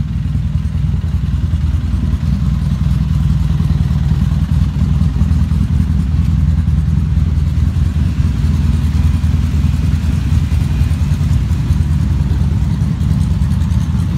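A vehicle engine idling steadily, a deep, even low rumble with no revving.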